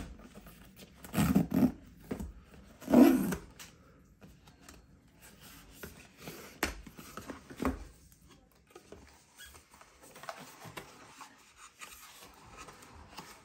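Cardboard product box being handled and unfolded: the flaps are rubbed, scraped and folded open, with a couple of sharp clicks near the middle. Two short, louder sounds stand out early on, about a second and three seconds in.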